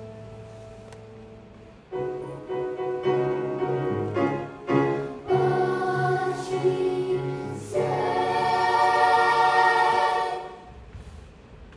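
Choir singing in harmony: a held chord fades, then from about two seconds in a new phrase builds to a loud sustained chord that dies away near the end.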